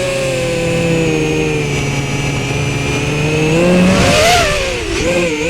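Brushless motors and props of a 5-inch FPV racing quad (XNova 2207 1700kV motors, HQProp 5-inch props) whining, heard through the quad's onboard video-transmitter microphone. The pitch sinks slowly for about four seconds, then rises and wavers briefly as the throttle is moved.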